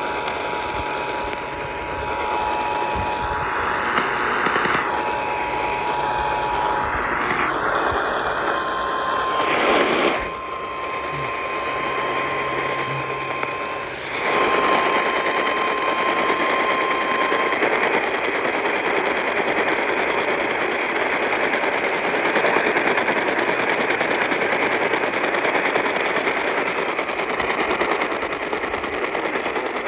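The Emergency Alert System two-tone attention signal is received over a radio through heavy static hiss, steady for about seven seconds. Then the single-tone NOAA Weather Radio warning alarm sounds steadily for about nine seconds, briefly breaking once. The hiss continues after the tones stop.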